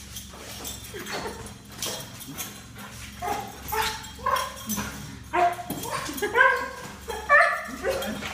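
A dog whining and yipping: a run of short, high-pitched cries that come faster and louder in the second half.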